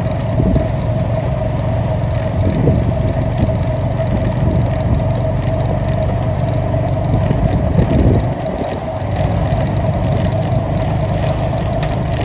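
A motor vehicle running steadily: a constant whine over a low rumble.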